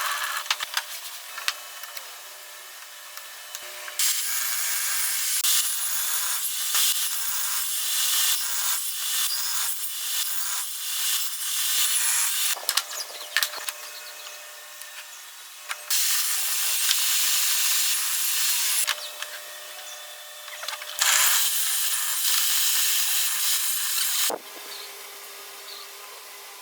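Wood being sawn and worked with tools, in several separate stretches of hissing cutting noise that start and stop abruptly, with quieter gaps and a few clicks and knocks between them.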